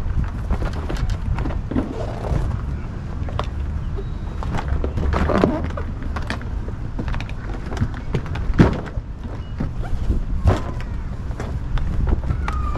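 The stiff folded plastic hull sheet of an Oru Lake folding kayak being pulled open and flexed by hand: crackling and rustling plastic with several sharp clicks and knocks, over a steady low rumble.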